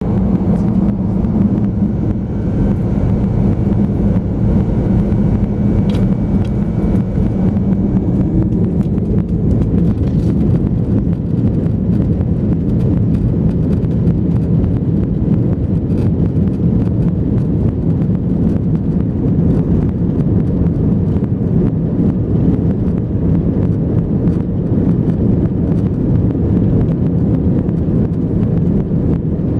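Airbus A320's twin turbofan engines running, a loud, steady low rumble with no rise or fall.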